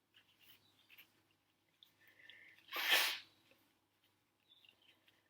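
One short, stifled sneeze about three seconds in, preceded by faint breaths.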